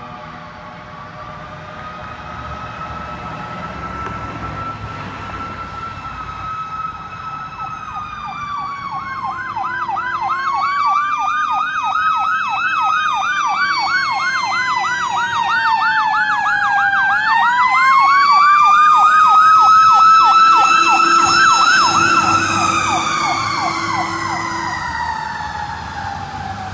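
Fire engine siren on an emergency run, coming closer and passing: a slow rising-and-falling wail, with a fast yelp of about three or four sweeps a second layered over it from about nine seconds in. It grows steadily louder to a peak about twenty seconds in, then fades and drops in pitch as the truck goes by.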